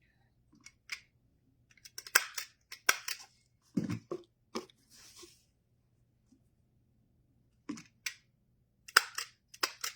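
Scissors snipping ribbon amid ribbon handling: a series of short, sharp snips and clicks, bunched about two to five seconds in and again near the end.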